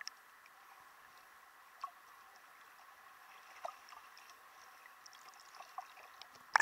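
Underwater sound through a submerged camera: a faint steady hiss with scattered small clicks and crackles, and a sharp knock near the end.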